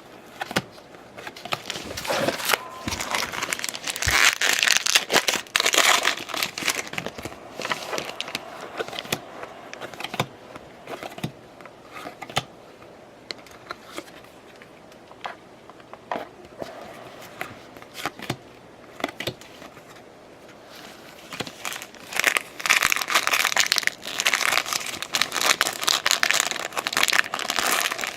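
Trading card pack wrappers being torn open and crinkled, with cards handled between; the crinkling is loudest in a spell about 2 to 7 seconds in and again from about 22 seconds in.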